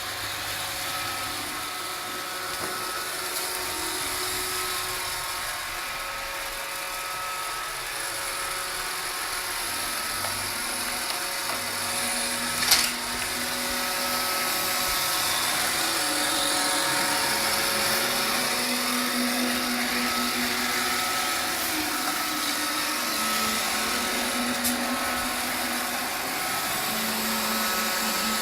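Roomba robot vacuum running: a steady whirring hiss with a motor whine whose pitch shifts a little as it moves. A single sharp knock comes about halfway through.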